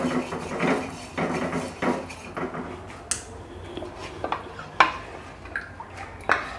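Oil being wiped over the inside of an earthenware pitha pan with a pad: a run of rubbing, scraping strokes for about the first two and a half seconds, then a few sharp clinks.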